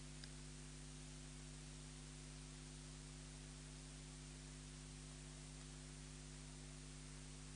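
Near silence: a faint steady hiss with a low electrical hum from the broadcast audio line.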